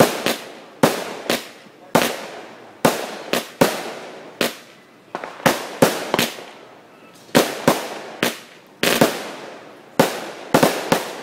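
Aerial fireworks shots bursting in quick succession: about two dozen sharp bangs at uneven intervals, some in quick pairs.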